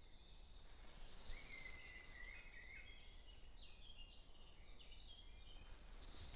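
Faint birdsong: a wavering high note about a second in, then a run of short falling notes, over low background hiss.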